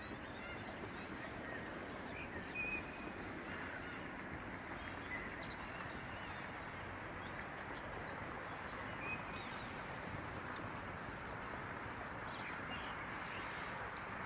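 Outdoor ambience: a steady rushing background noise with many short, high bird chirps and a few brief calls scattered through it.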